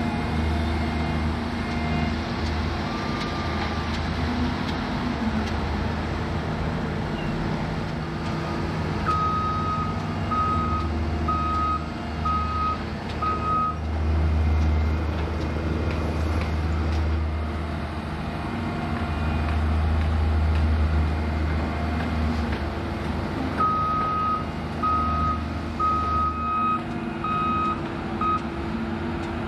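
Diesel engine of heavy earthmoving machinery running, its rumble rising and falling with the load. A reversing alarm sounds in two runs of short, evenly spaced beeps, one about a third of the way in and one near the end, as a machine backs up.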